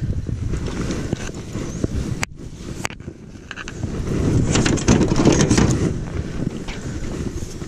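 Wind buffeting the microphone in a small open boat, a low rumbling noise, with scattered knocks and rustles of gear and handling. The sound drops out briefly a little over two seconds in, and a sharp click comes about a second later.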